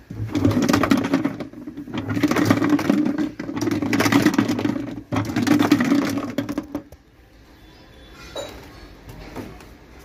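Top-loading washing machine's pulsator motor running in four bursts of about a second and a half each, with short pauses between them, a low hum with a rattle. Then it stops about seven seconds in.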